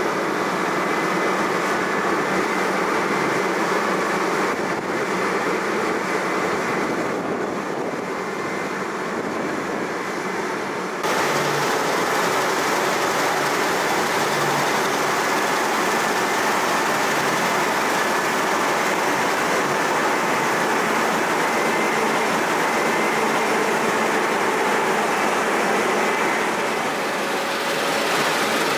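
New Holland 9.90 combine harvester running while harvesting wheat with its 13.6 m Draper header: a steady mechanical drone and hiss with faint whining tones, louder and brighter from about eleven seconds in.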